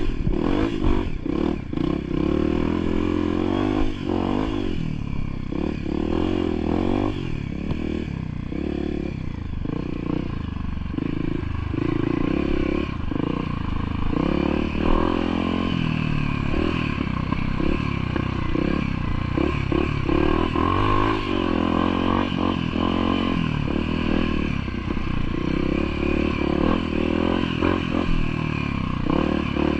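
Off-road trail motorcycle engine running under changing throttle, its pitch rising and falling again and again, with clattering knocks from the bike over rough ground.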